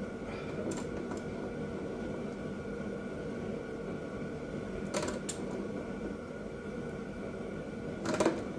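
A thread die being worked down the chewed-up flywheel-end threads of a Predator 212 crankshaft with channel-lock pliers: a few sharp metal clicks and a short loud squeak near the end, over a steady workshop hum.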